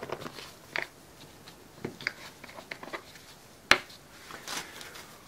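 Light clicks and rustles of plastic measuring cups and a bottle being handled on plastic sheeting, with one sharp click a little after halfway, as a bottle cap is set down on the table.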